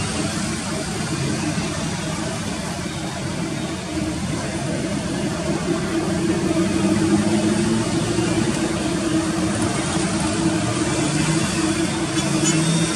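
Boeing 787 Dreamliner's jet engines running at taxi power, a steady rumble with a held low hum that grows a little louder about six seconds in.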